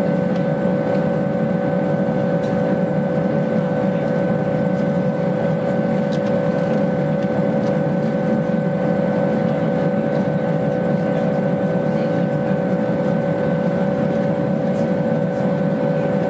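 Steady cabin noise of a Boeing 929 Jetfoil under way: a constant hum from its gas turbines and waterjet propulsion, with several high, even whining tones over it.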